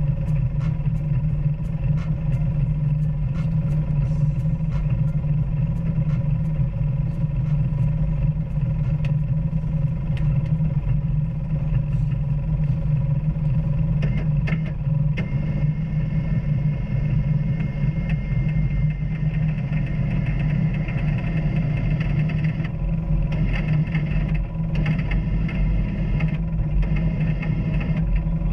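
Off-road vehicle engine running steadily while driving a trail, with scattered knocks and rattles.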